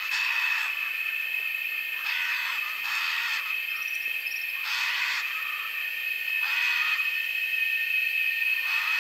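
Rainforest animal chorus: a steady high-pitched drone, with short raspy calls about half a second long repeating every couple of seconds, two of them close together around two to three seconds in.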